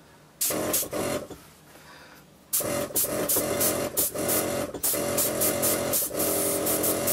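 Small airbrush compressor running with a steady hum and rapid pulsing, air hissing out through the airbrush as paint is sprayed: a short burst about half a second in, then again from about two and a half seconds on.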